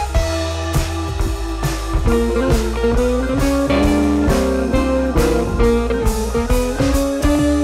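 Background music: blues-rock with guitar, bass and a regular drum beat.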